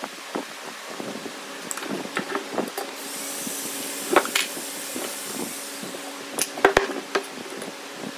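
Handling noises on a wooden workbench: light taps and scrapes, then sharp knocks as heavy wooden pieces and a steel ruler are set down, the loudest cluster about six and a half seconds in. A steady hum of an electric floor fan runs underneath, with a brief hiss near the middle.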